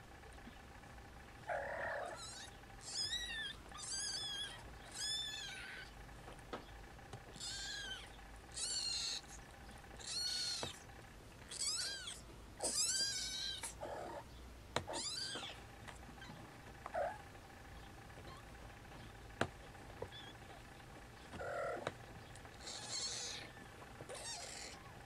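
Newborn kittens mewing: short, high-pitched rising-and-falling cries, about one a second in clusters, with a few lower calls in between.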